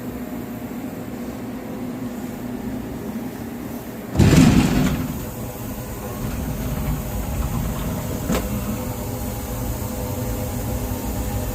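Compact 5-axis CNC tool grinder running with a steady machine hum. About four seconds in there is a sudden loud rushing burst lasting about a second, after which a heavier low rumble carries on. A single sharp click comes near the end.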